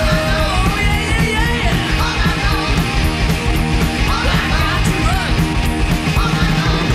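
Hard rock band recording: loud drums with regularly spaced cymbal hits under distorted electric guitar and bass, with a lead line of bending, gliding notes.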